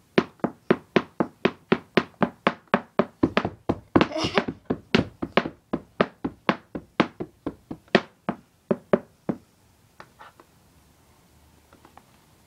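A fast, even run of sharp taps, about four a second and getting a little quicker, with a short vocal sound about four seconds in; the tapping stops abruptly about nine seconds in.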